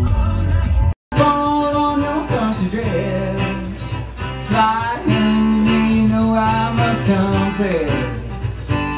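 A live acoustic duo: two acoustic guitars strummed while a man sings. It opens with about a second of other music with a heavy bass line, which breaks off abruptly before the guitars and voice begin.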